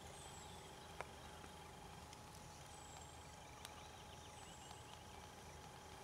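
Near silence: faint steady hiss and hum, broken by one sharp click about a second in and a softer click a few seconds later, with a few faint high falling chirps.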